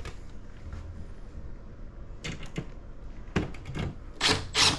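Tools and hardware being handled: short clicks and knocks in three small clusters, about two, three and four seconds in, over a faint low hum.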